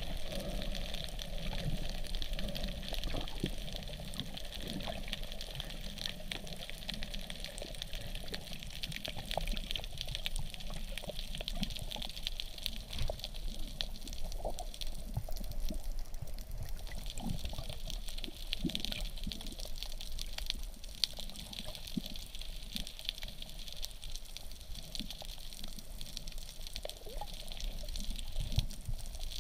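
Underwater ambience picked up by a submerged camera: a steady wash of water noise with a low rumble and many scattered faint clicks and crackles.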